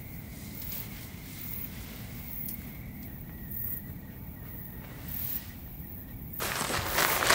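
Insects chirping steadily on a summer night, with a faint low rumble underneath. Near the end, a louder burst of rustling noise.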